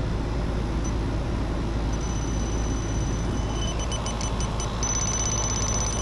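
Electronic refrigerant leak detector sounding at an evaporator coil: a thin high tone joined a little over halfway in by rapid, evenly spaced high beeps that quicken and strengthen near the end, the detector picking up refrigerant at the coil leak. A steady low rumble runs underneath.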